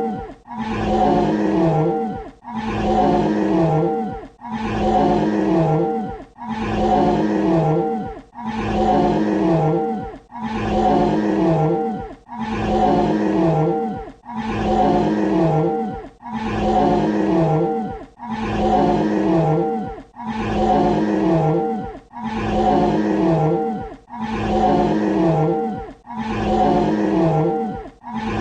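Dinosaur roar sound effect looped: the same roar, nearly two seconds long, repeats back to back about every two seconds, each one sliding down in pitch as it ends.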